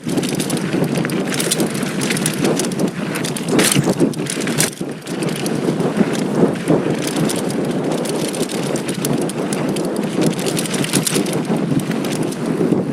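2019 Giant Stance 2 mountain bike riding fast over a rough dirt trail: tyres on loose dirt, with frequent sharp clatters and knocks from the bike over bumps, and wind on the microphone.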